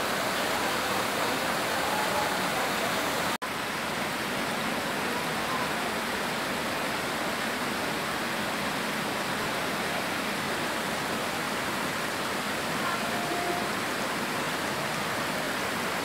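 Waterfall: a steady, even rush of falling water, broken by a momentary dropout about three seconds in.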